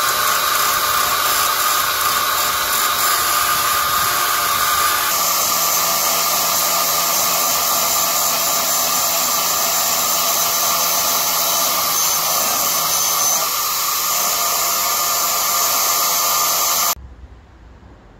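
A handheld electric power tool runs steadily while cleaning rust off the steel of a van's inner sill. Its pitch shifts a little about five seconds in, and it cuts off suddenly near the end.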